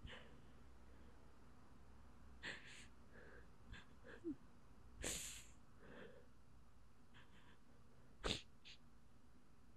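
Near silence broken by a few short sniffs and breaths from a person at rest, and one sharp click near the end.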